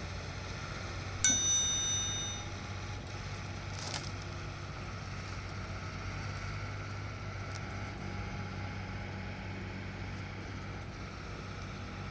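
A single metallic clang about a second in, ringing for about a second as it dies away, over a steady low hum.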